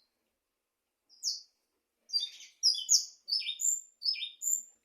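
A small bird chirping: one high chirp about a second in, then a quick run of high chirps and short notes until near the end.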